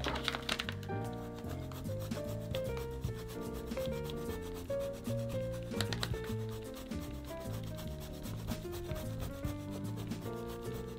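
Parmesan cheese being grated over a plate of spaghetti carbonara: a long run of quick scraping strokes on a grater. Soft background music plays underneath.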